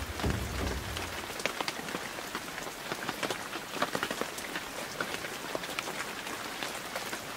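Steady rain falling on a lake, with many separate drop hits heard. A music track fades out in the first second.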